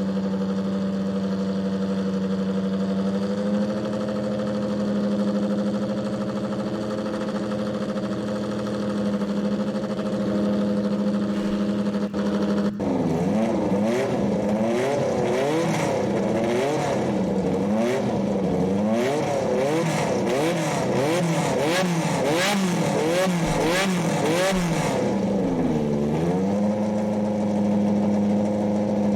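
Car engine idling steadily, then revved again and again for about twelve seconds from a little under halfway in, before settling back to idle near the end.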